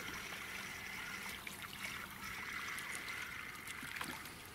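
Hooked crucian carp being played through shallow water: steady trickling and splashing at the surface as it is drawn out of the reeds.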